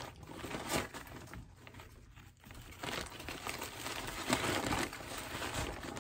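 Brown paper takeout bag crinkling and rustling as it is handled and a wrapped food item is pushed into it. The crinkling grows louder about halfway through.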